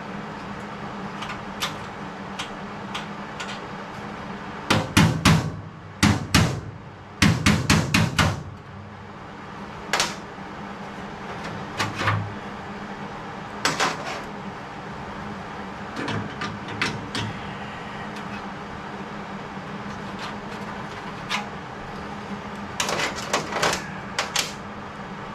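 Hammer blows on sheet metal, in quick runs of several strikes with pauses between, the heaviest run about five to eight seconds in and another near the end, over a steady low shop hum.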